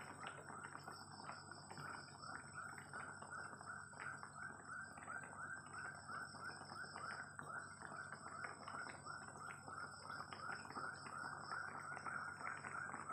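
Jengkol stew in coconut milk and sweet soy sauce simmering in a wok, bubbling quietly with about four small pops a second.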